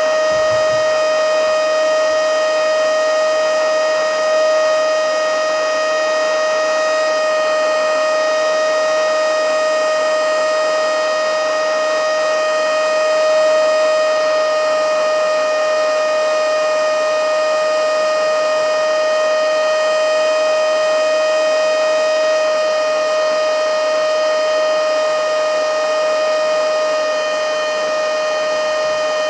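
Battery-powered mini handheld blowing/sucking vacuum cleaner (XCQ-508) running continuously at full power, a loud, steady high-pitched motor whine over a rush of air.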